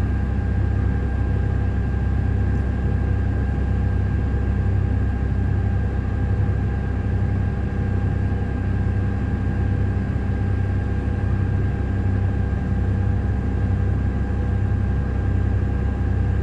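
Heavy mining machinery's diesel engine running steadily, a deep unchanging drone heard from inside a machine's cab, with a faint steady whine above it.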